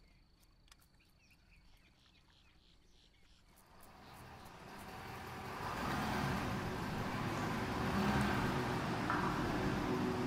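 Near silence with a few faint ticks, then a pickup truck's engine and tyres build up from about four seconds in and run loud and steady as it drives across a large warehouse hall.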